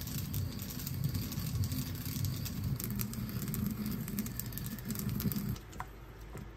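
Wooden pestle grinding whole sesame seeds in a ridged ceramic grinding bowl: a steady gritty rubbing and crunching that stops about a second before the end. A short light clink follows.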